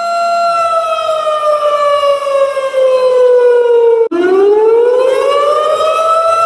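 Warning siren: a steady wail that slowly falls in pitch, cuts off abruptly for an instant about four seconds in, then rises back up to its steady pitch.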